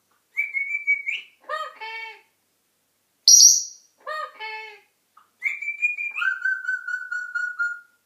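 African grey parrot whistling and calling: a level whistle that rises at its end, two runs of short pitched calls, a loud high whistle about three seconds in, then a whistle that steps down into a long steady whistle near the end.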